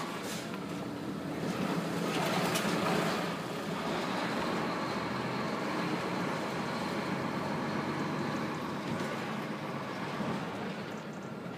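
Truck engine and road noise heard from inside the cab while driving slowly, steady, a little louder about two seconds in.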